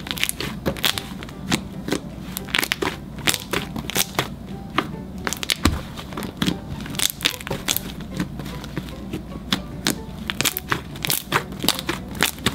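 Fluffy slime with shaving cream worked in, being kneaded, stretched and squished by hands: a fast, irregular string of sharp crackling pops as trapped air bubbles burst. Background music plays underneath.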